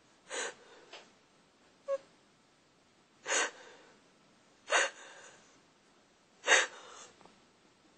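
A woman's sharp, frightened gasping breaths while crying: four short gasps a second or more apart, the last one the loudest.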